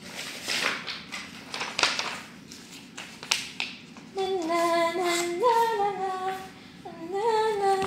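Paper rustling and crackling as it is handled, in short scrapes. About four seconds in, a woman's voice takes over, singing a few drawn-out, wordless notes.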